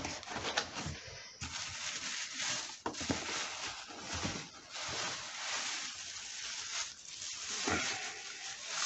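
Cardboard box and plastic wrapping rustling and crinkling as a boxed unit is pulled out and handled, with a few knocks against the box along the way.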